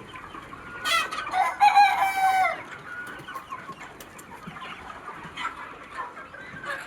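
A rooster crowing once, about a second in: a loud call held for about a second and a half that drops slightly at its end. Under it, a flock of Sonali chickens clucks steadily.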